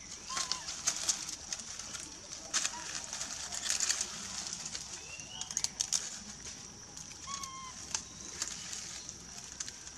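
Dry leaf litter rustling and crackling in many short bursts as macaques move and forage on it, over a steady high hiss, with a few short high chirps.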